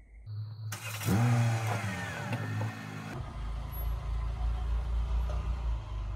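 SUV engine starting: it catches about a second in and revs up briefly, then falls back to a steady idle about three seconds in.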